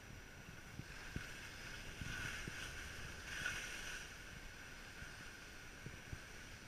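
Skis sliding and scraping over groomed snow, with wind rushing past the camera's microphone. The scraping grows louder about two to four seconds in, and there are a few soft low thumps.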